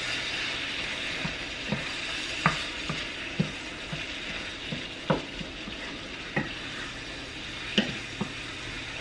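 Sausage, tomatoes and peppers sizzling in a frying pan as a wooden spoon stirs them, knocking against the pan about a dozen times at irregular intervals.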